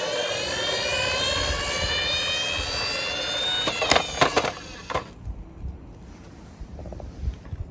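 Toy police car and ambulance minicars running down a slope: a rising whine with many overtones, cut off by a clatter of knocks about four seconds in, then a few light taps.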